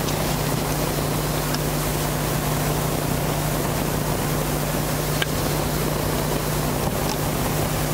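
Steady rushing background noise with a low steady hum underneath and a couple of faint clicks.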